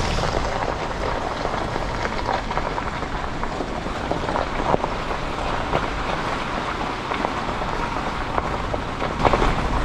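Steady rain falling, a dense even hiss with scattered small drop ticks.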